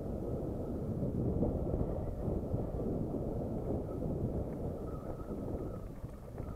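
Wind rushing over the microphone during a downhill mountain-bike ride, mixed with the rumble and rattle of the bike's tyres on a stony dirt trail.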